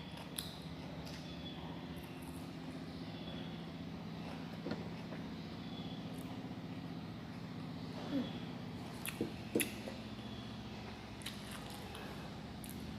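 Crispy fried chicken being bitten and chewed: a few short crunches and clicks, a cluster of them about eight to ten seconds in, over a steady low hum.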